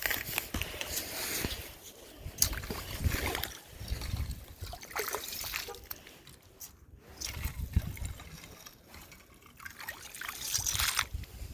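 Water dribbling and sloshing, broken by scattered irregular clicks and knocks.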